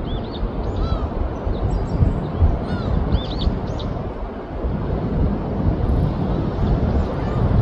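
Birds calling repeatedly with short, arching calls, several in the first half and faint ones again near the end. They sound over a steady low rush of wind and surf, which is the loudest thing throughout.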